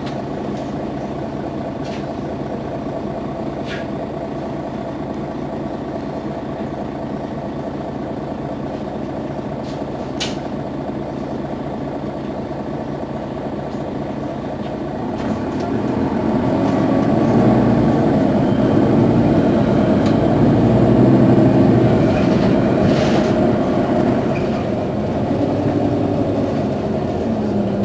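Mercedes-Benz Citaro city bus diesel engine running steadily, then growing louder about halfway through and easing off again near the end.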